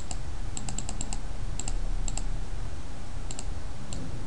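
Computer keyboard and mouse clicks: sharp, short taps in small clusters, some in quick pairs, over a steady low hum.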